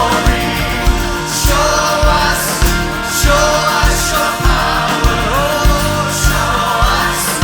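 Church choir singing a contemporary worship song, backed by an orchestra and band with a steady drum beat.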